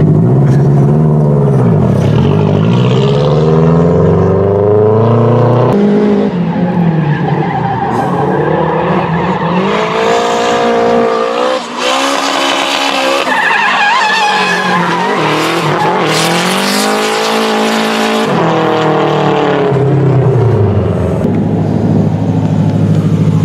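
Nissan S13 Silvia drift car's four-cylinder engine revving up and falling off again and again as the car slides sideways, with tyre squeal through the middle of the run.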